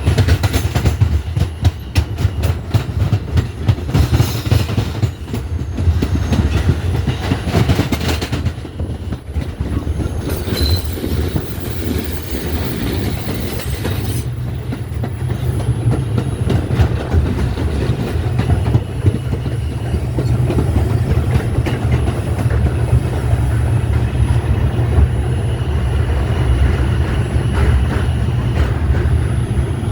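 R142 subway train running at speed, heard from aboard: a steady low rumble of wheels and motors, with rapid clickety-clack over the rail joints in the first third. A high hiss comes in for a few seconds in the middle.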